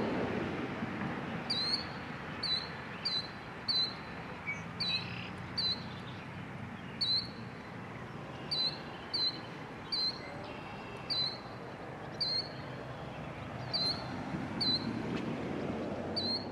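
A bird chirping over and over, short sharp high calls about once a second, over a steady background rush.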